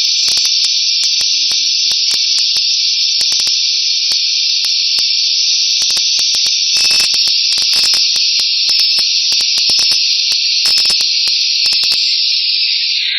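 Steady, loud hiss of escaping compressed air from a pneumatic cap assembly machine, with scattered sharp clicks and ticks from the machine throughout. Right at the end the hiss shifts lower in pitch.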